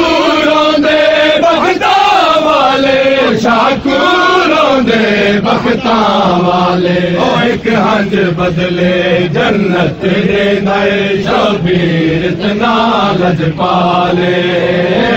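Men's voices chanting a Punjabi noha, a Shia mourning lament, in a drawn-out sliding melody. Sharp slaps from matam, hands striking chests, recur regularly through the chant.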